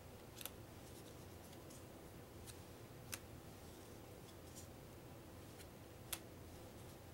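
Game cards being flicked off a small stack one at a time, each flip a faint sharp snap of card on card; the clearest snaps come about half a second, three seconds and six seconds in.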